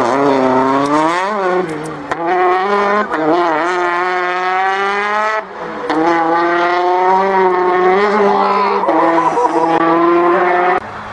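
Rally car engine at high revs, its pitch rising and falling as it shifts up through the gears and lifts for corners. The sound breaks off suddenly about five and a half seconds in, then the engine comes back held high and fairly steady until it cuts off near the end.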